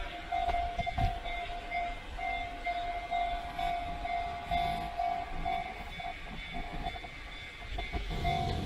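Railway level-crossing alarm on the Enoden line ringing steadily, with a train's rumble building near the end.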